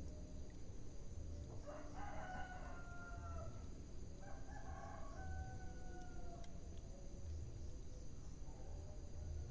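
A rooster crowing twice, each crow about two seconds long, over the steady low noise of a wood fire.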